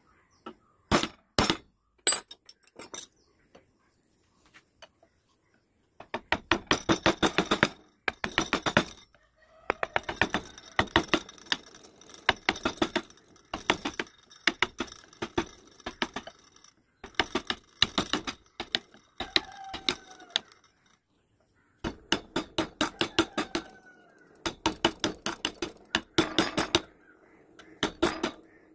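Carving chisel being struck repeatedly to cut into wood: sharp taps several a second in runs, with short pauses between them.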